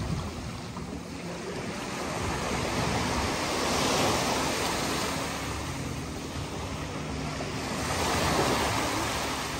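Sea waves breaking and washing onto a beach, a steady rush that swells twice, about four seconds apart.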